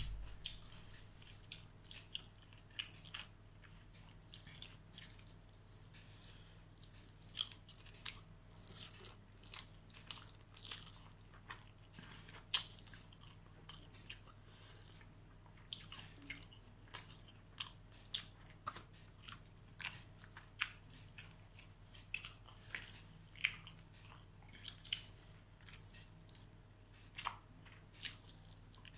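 Close-up eating sounds of rice and chicken curry eaten by hand: chewing with irregular wet clicks and smacks, a few a second, over a faint low hum.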